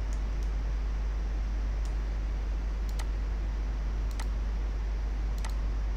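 Computer mouse clicks: several faint, scattered single clicks, some in quick pairs, over a steady low electrical hum.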